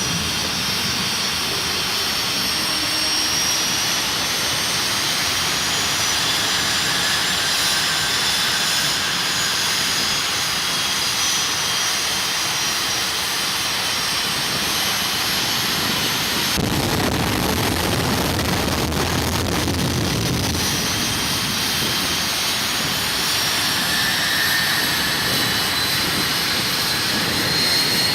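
Jet engine of a jet-powered drag truck running loudly and steadily, with a high turbine whine that slowly rises and falls in pitch. Around the middle a deeper rumble swells for a few seconds, then eases back.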